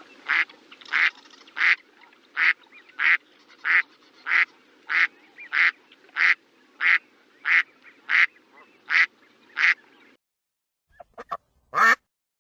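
A duck quacking over and over at an even pace, about fifteen short quacks roughly two-thirds of a second apart, stopping about ten seconds in. After a short pause come a few brief sounds, the last one the loudest.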